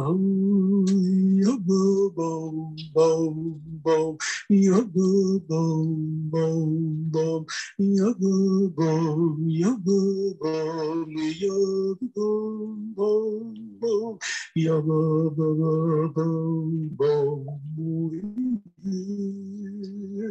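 Wordless Hasidic nigun sung on syllables, a slow dveykus-style melody of long, held notes broken by short breaths.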